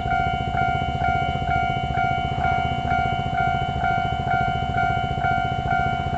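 Level-crossing warning bell ringing steadily at a Taiwan Railways crossing, a bright repeated chime struck about twice a second, over a continuous low rumble.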